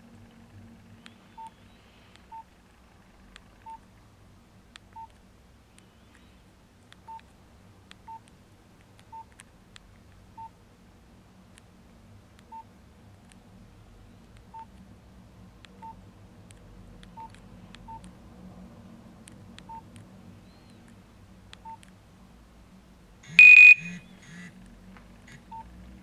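Nokia 2330 Classic keypad tones: short beeps at one pitch, one per key press, irregularly spaced about every one to two seconds as the menus are scrolled. Near the end comes a single louder, higher tone about half a second long.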